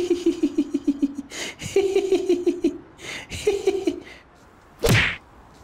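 A man laughing in three bouts of quick, pulsing 'ha-ha-ha' laughter. About five seconds in, one short, loud swish-like burst cuts in.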